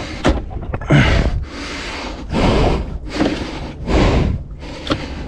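A man breathing heavily close to the microphone, several loud breaths in and out in quick succession.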